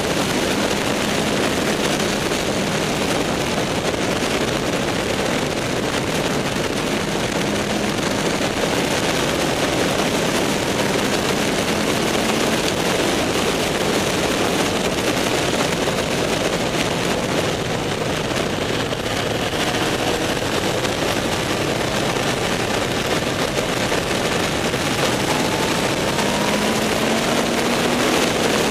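Heavy wind rush on the microphone of a moving motorcycle, with the engine's note faint beneath it and rising near the end as the bike speeds up.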